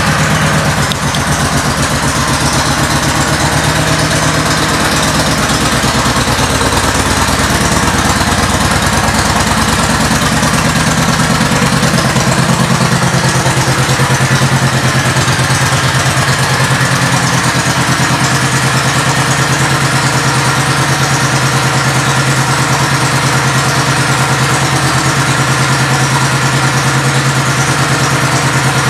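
Kawasaki Vulcan 1700 Voyager's V-twin engine idling steadily through a Vance & Hines aftermarket exhaust, just after being started.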